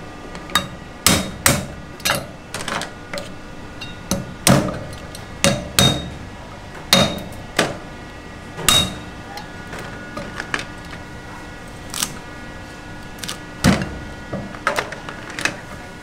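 Chinese cleaver chopping a crab on a thick round wooden chopping block: irregular sharp chops and knocks, some with a brief metallic ring from the blade.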